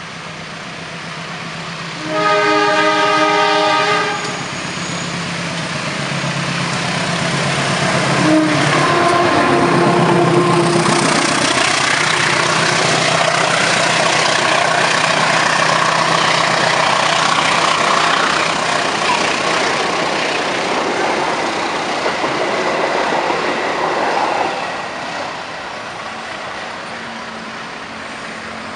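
Argo Muria passenger train, hauled by a diesel locomotive, sounding its horn in a loud multi-note blast of about two seconds. The train then runs past, its noise building to a peak and holding before fading away near the end.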